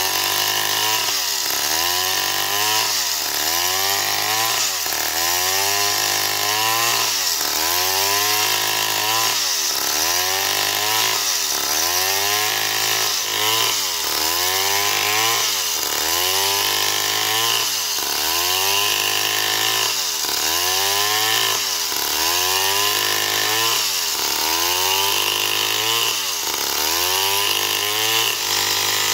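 Stihl MS 070 chainsaw's big single-cylinder two-stroke engine running at full throttle while ripping a log lengthwise. Its pitch dips under the load of the cut and recovers about once a second.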